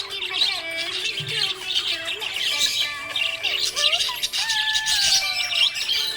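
Budgerigar chirping and warbling without pause, a dense stream of quick chirps mixed with short rising and falling whistles.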